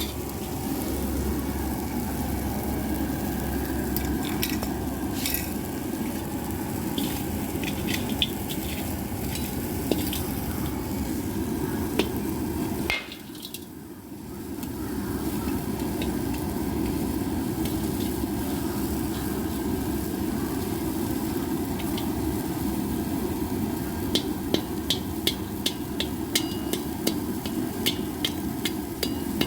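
Borax lumps heating in a pan over a stove burner: steady burner noise with crackling and sizzling as the borax melts. The noise briefly drops about halfway through, and near the end there is a run of quick sharp clicks.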